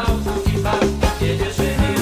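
Band music playing an instrumental passage of the song with a steady drum beat and no vocals.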